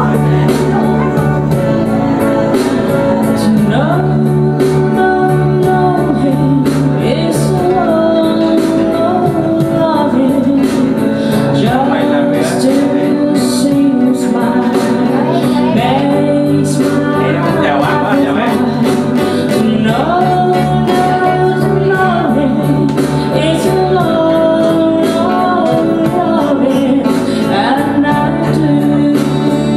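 A woman singing a song live into a microphone, with held, gliding notes over instrumental accompaniment that has a steady bass line changing every few seconds.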